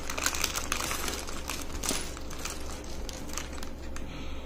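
A clear plastic packet crinkling as it is emptied, and small plastic LEGO bricks clattering and clicking out onto a wooden table in many quick, irregular ticks.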